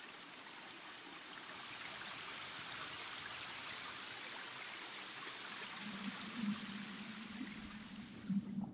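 Small stream of water trickling steadily between ice-rimmed stones. A low wavering hum comes in over it during the last few seconds.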